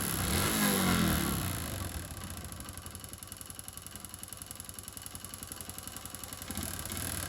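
Honda Pop 110i's small single-cylinder four-stroke engine revved briefly, then idling with a rapid, even knock. The mechanic traces the knock to a piston scored from running without oil and a worn connecting rod with play.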